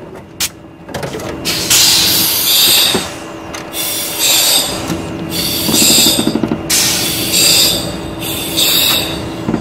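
Pilots' quick-donning oxygen masks hissing in repeated bursts of rushing air, about one every second or so, as the masks go on and oxygen flows with each breath. Twice a short rapid fluttering pulses under the hiss.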